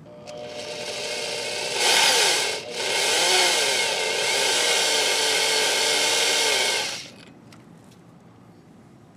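Electric drill running in reverse, a left-hand drill bit cutting into a hardened steel bolt broken off in a flywheel. It winds up just after the start, dips for a moment, then runs steadily with a wavering pitch under load before stopping about seven seconds in.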